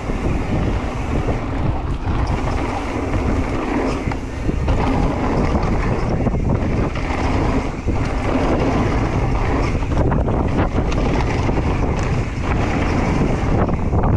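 Wind buffeting the microphone and knobbly tyres rolling fast over a dirt trail on a descending full-suspension mountain bike, with frequent knocks and rattles from the bike over bumps and berms.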